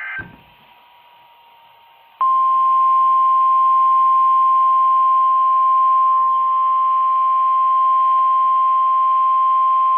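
NOAA Weather Radio 1050 Hz warning alarm tone: one steady, loud high-pitched tone that comes on about two seconds in and holds, with faint radio static beneath it. It signals that a weather warning is about to be broadcast.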